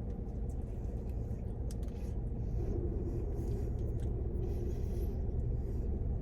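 Steady low rumble of a car's interior, with a faint steady hum joining in partway through and a few faint clicks.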